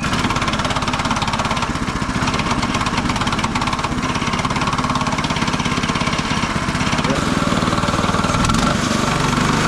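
Small gasoline engine of a Mechmaxx SM-22 bandsaw mill catching on its first-ever pull start with the choke on, then running steadily; its note shifts slightly about eight and a half seconds in.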